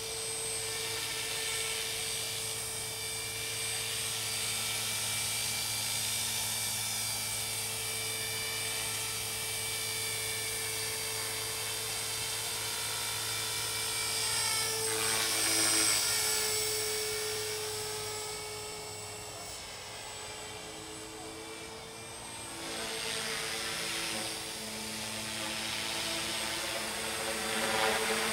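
Align T-Rex 450 Pro electric RC helicopter in flight: a steady high whine from the motor and drive, with the rotor's hum beneath it. The pitch wavers and sweeps as the helicopter manoeuvres. It grows louder about halfway through, drops back soon after, and swells again at the end.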